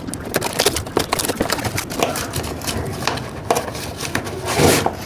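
Cardboard parcel being opened by hand: fingernails scratch and pick at packing tape with a run of crackling clicks, then a louder rip near the end as the tape and flap are torn open.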